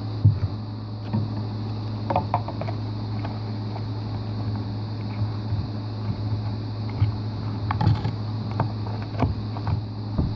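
Thick putty being squeezed and pressed into a clear plastic tub by hand, giving scattered soft clicks and squishes, clustered a couple of seconds in and again near the end. A steady low hum runs underneath.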